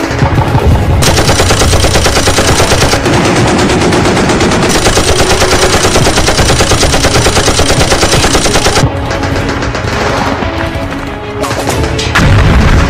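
Battle sound effect of rapid automatic gunfire over background music; the steady stream of fire breaks off about nine seconds in, with a loud burst near the end.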